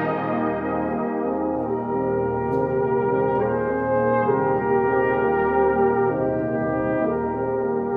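Slow brass music with long held chords that change every second or two.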